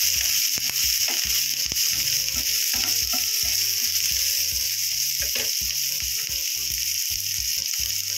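Chopped onion, curry leaves and garlic sizzling in hot oil in a nonstick frying pan, with a steady hiss. A wooden spatula stirs them, scraping and knocking against the pan.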